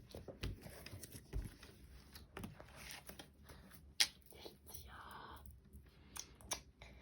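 Hands working slime: faint sticky clicks, squelches and rustles, with one sharper click about four seconds in.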